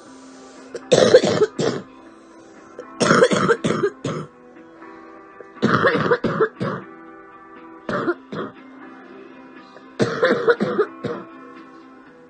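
A young woman coughing in five short fits about two seconds apart, each a rapid run of hacking coughs, with quiet music underneath.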